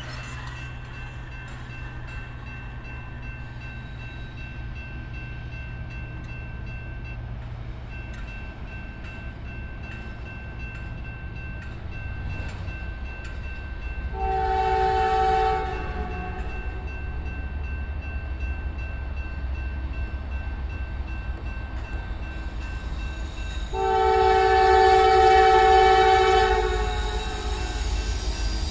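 Norfolk Southern freight locomotive horn sounding for a grade crossing: a shorter blast about halfway through and a longer blast near the end, over a low diesel rumble that grows as the train approaches. A crossing warning bell rings steadily underneath.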